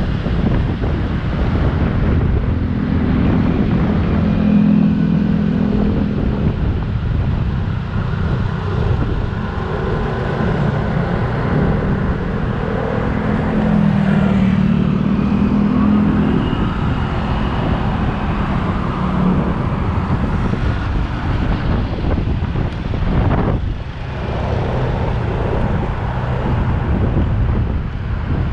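Motorcycle engine running while riding through city traffic, its pitch rising and falling twice with the throttle over a steady rush of road noise, with other vehicles around.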